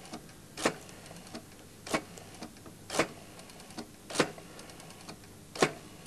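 Telephone hook switch on the desk set pressed down repeatedly: five sharp clicks about a second apart, jiggling the line after no answer.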